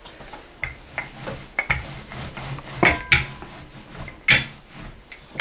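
Wooden rolling pin rolling and knocking on a wooden table while pizza dough is rolled out and handled: a series of irregular knocks and thumps, some in quick pairs, with a louder knock at the very end.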